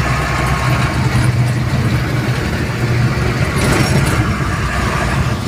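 Steady engine drone and road noise of a moving vehicle, heard from inside its cab, with a short louder rush about four seconds in.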